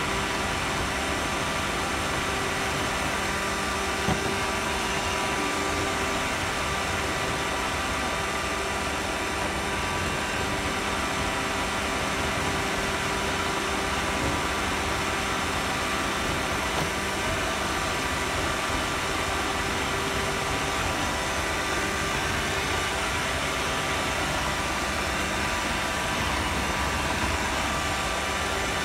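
Roomba robot vacuum running, its motors and suction fan giving a steady whirring hiss with several constant tones, picked up from on top of the machine. A light knock about four seconds in.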